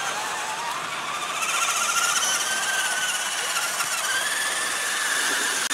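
Electric radio-controlled scale off-road trucks driving, their motors and gearboxes whining, the pitch wavering and rising with the throttle about a second and a half in and again near four seconds.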